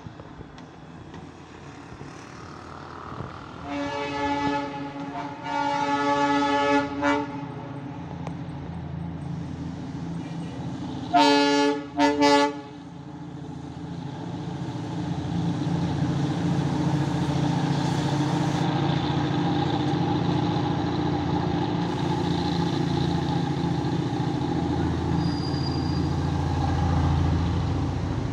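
Darjeeling Himalayan Railway narrow-gauge diesel locomotive sounding its horn: two longer blasts, then two short ones a few seconds later. After that its engine runs with a low, steady rumble that grows louder as it approaches.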